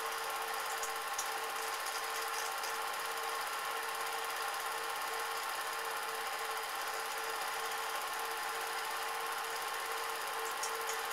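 Cine film projector running: a steady mechanical whirr with a constant hum.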